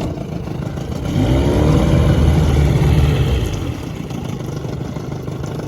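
A 1995 Johnson 25 hp two-stroke outboard motor in reverse gear. It revs up about a second in, holds for a couple of seconds, then drops back to a steady idle.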